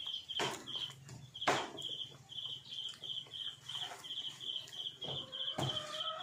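An insect chirping in a steady rhythm, about three high chirps a second, with a few sharp knocks, the loudest about a second and a half in and near the end.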